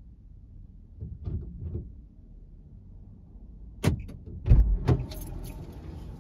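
A car door being opened and shut from inside the car: a sharp latch click, then two heavy thumps as she gets into the seat and pulls the door closed, followed by keys jangling.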